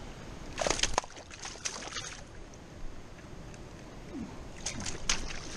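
Scuffing and rustling of grass as a person steps over rocks at the water's edge, with a few sharp clicks, in two clusters: about half a second to two seconds in, and again near the end. A steady rushing hiss lies underneath.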